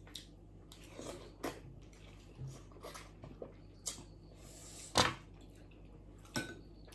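Close-up eating sounds of a person eating spicy Korean ramen: soft wet mouth and chewing noises with scattered sharp clicks, the loudest about five seconds in.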